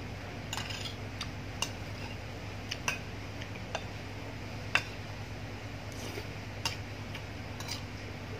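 Metal spoon clinking and scraping against a ceramic plate as rice is scooped up: scattered sharp clicks at an irregular pace, the loudest a little under five seconds in, over a steady low hum.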